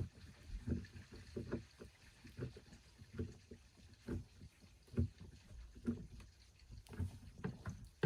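Irregular light knocks and clunks of hands and parts working the outfitting inside a hollow plastic kayak hull, about one or two a second.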